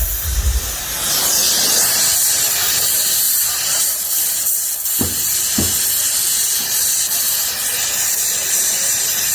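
Gas welding torch flame hissing steadily during aluminium welding at the oil-leaking nut on a 70cc motorcycle's engine casing. Two short knocks about five seconds in.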